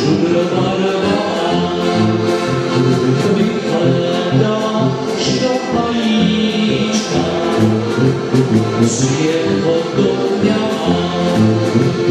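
Live Moravian folk-song medley played by three accordions with tuba and drum kit: the accordions carry the melody in held chords while the tuba plays a moving bass line under steady drum and cymbal strokes.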